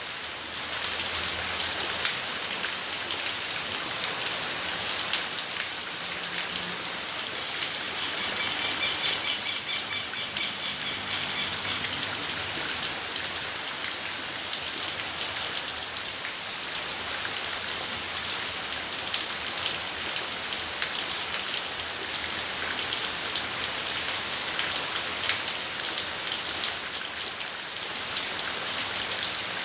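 Steady rain falling in a garden, with many close drops ticking. For a few seconds about a third of the way in, a faint high repeating chirp sounds under the rain.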